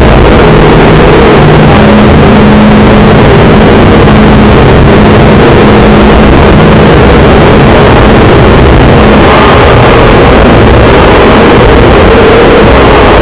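Heavily distorted, clipped digital audio: a continuous loud wall of noise with faint steady low tones beneath. It is a slowed-down, over-amplified edit of a sound played over a Windows XP parody boot screen.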